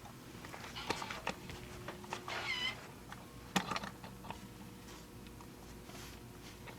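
Handling noise as fabric and foam stabilizer are lined up for ironing: soft rustles and a few light knocks, with a short squeaky chirp about two and a half seconds in.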